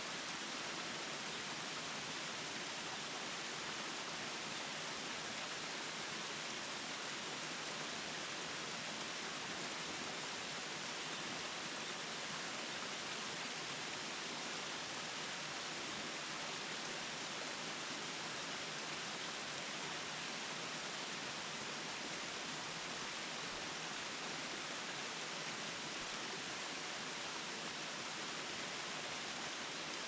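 Steady, even rush of water from a tall, narrow waterfall and the stream below it.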